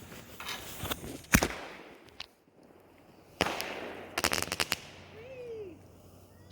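Daylight firework shell fired from its tube with one sharp bang about a second and a half in. About two seconds later the shell breaks in the air with a burst of noise and a quick string of crackling pops.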